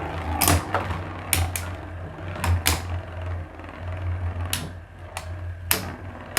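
Two Beyblade spinning tops, Tornado Destroyer and Tornado Leone, clashing in a battle stadium: a run of sharp, irregular plastic-and-metal clacks as they collide, about eight in all, over a steady low hum.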